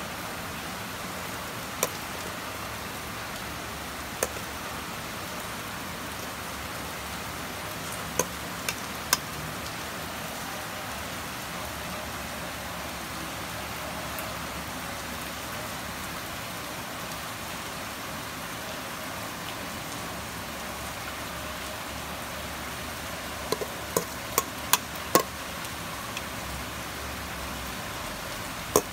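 Steady even hiss with a few short, light clicks of kitchenware being handled, a cluster of them near the end.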